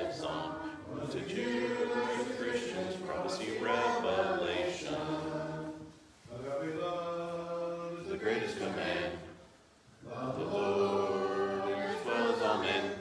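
A group of voices reciting memorised lines together in unison, chant-like, pausing briefly between lines about six and ten seconds in.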